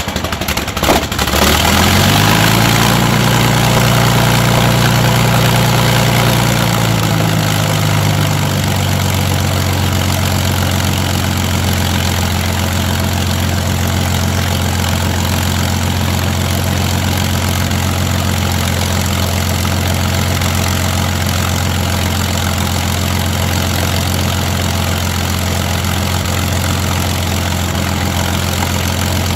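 Rolls-Royce Merlin V12 aero engine catching with a crackle of firing strokes in its first second. It runs up to a faster speed, holds there for a few seconds, then settles back to a steady idle about seven seconds in.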